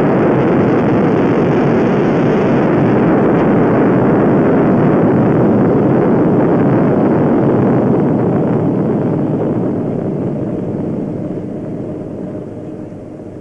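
Sustained rumble of an atomic bomb explosion, a loud, dense, even noise that holds steady for about eight seconds and then fades away.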